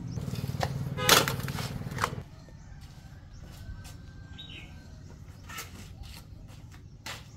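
Hand work with concrete tools: scattered knocks and scrapes of a trowel and a metal bucket, with one loud metallic clank about a second in. A low steady hum runs under the first two seconds and then stops.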